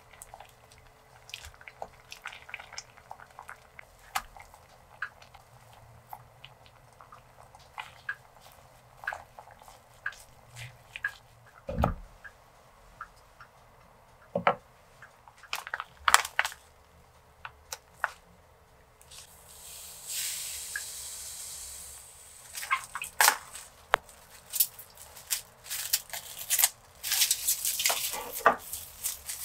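Home kitchen sounds: light clicks and taps of a wooden spoon against a ceramic pot, with a louder knock about twelve seconds in. A steady hiss runs for a few seconds past the middle, then clinks of a glass bottle and water at the sink.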